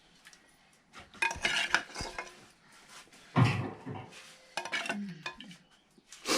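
Metal pots, dishes and utensils clattering and scraping in irregular bursts, with a louder knock about halfway through.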